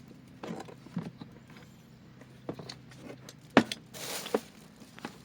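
Gear being handled while setting up camp: scattered knocks and clicks with a brief rustle, the sharpest knock about three and a half seconds in, over a low steady hum.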